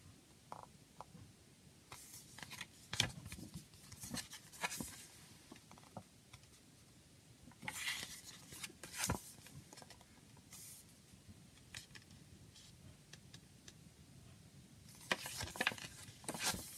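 Pages of a paper CD booklet being turned and handled: faint, intermittent rustles and small clicks, coming in three clusters, a couple of seconds in, about eight seconds in, and again near the end.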